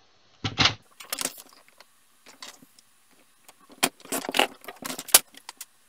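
Plastic paper trimmer set down on the table with a knock, then a series of clicks, taps and scrapes from card stock and the trimmer's arm and cutting blade as the card is positioned and trimmed.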